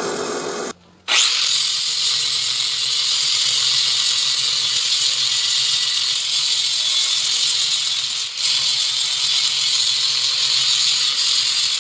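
A drill press boring a 5/8-inch hole in half-inch steel plate for under a second. After a short break, a 4½-inch angle grinder with a grinding disc runs steadily against the steel plate, grinding it clean.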